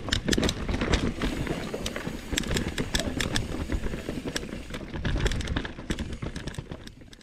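Mountain bike rolling down a rooty dirt singletrack: steady tyre and wind noise with frequent sharp clicks and rattles from the bike over roots and rocks, fading out near the end.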